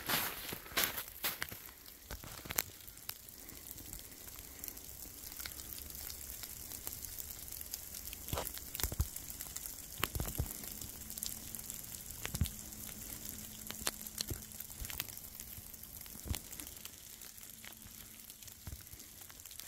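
Irregular crunches and crackles of slow footsteps over dry ground cover, over a steady high hiss.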